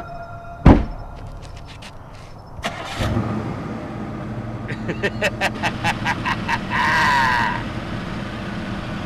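A sharp, loud bang under a second in, then a car engine starts up near the middle and keeps running, with a quick run of ticks and a short wavering high tone over it later on.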